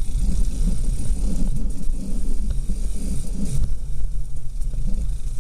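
Dirt bike engine running at low revs on a slow downhill over rough, rocky ground, with an uneven low rumble.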